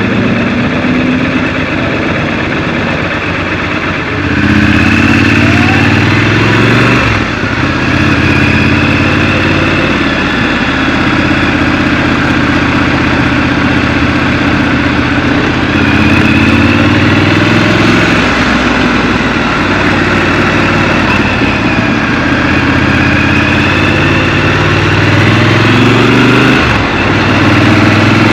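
Scrambler motorcycle engine under way, its revs rising and falling several times as it pulls along, with two brief drops in the sound, about a quarter of the way in and near the end.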